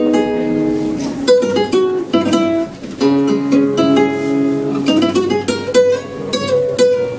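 Solo flamenco guitar: single plucked notes and runs that ring on, broken by several sharp strummed chords.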